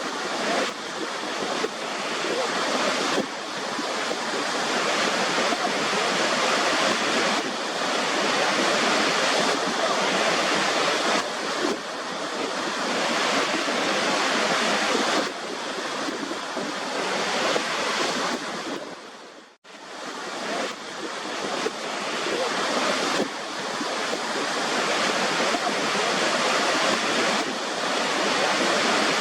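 Waterfall: a steady, full rush of falling water. It briefly fades out and comes back about two-thirds of the way through.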